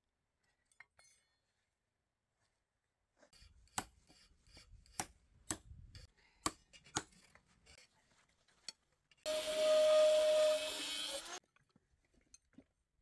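Workshop tool sounds: a run of sharp knocks and taps, then a tool running with a steady whine for about two seconds, which stops abruptly.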